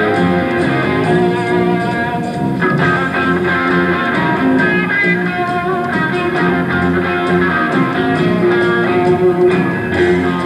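Live rock band playing: electric guitar over drums, with regular drum and cymbal strokes keeping a steady beat.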